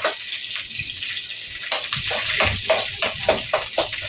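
Cumin and green chilli sizzling in hot ghee in a kadai. From about two seconds in, a metal spatula scrapes and knocks against the pan in quick strokes.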